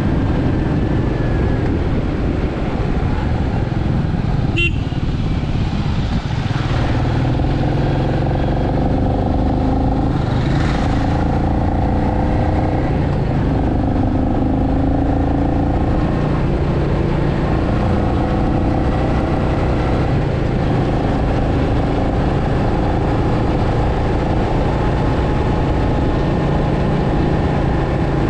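Royal Enfield Meteor 350's 349 cc single-cylinder engine and exhaust running at a steady cruise, heard from the rider's seat. A short sharp sound cuts in once, about four and a half seconds in.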